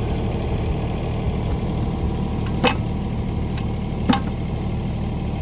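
Excavator engine idling steadily, with two sharp knocks about a second and a half apart as the attachment is worked against the quick hitch.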